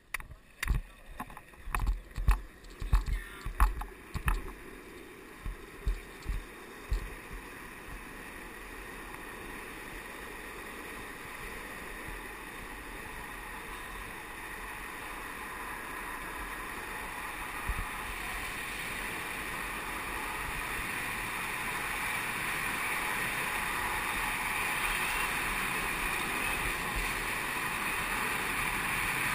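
Downhill longboards rolling fast on asphalt with rushing wind, a steady noise that grows gradually louder as the boards pick up speed. A series of thumps comes first, over the opening several seconds.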